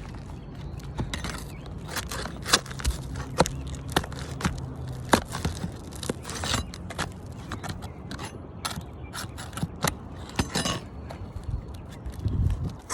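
Hand tool scraping and prying under roof shingles to free the last nail of a cracked shingle, with many irregular sharp clicks and short scrapes.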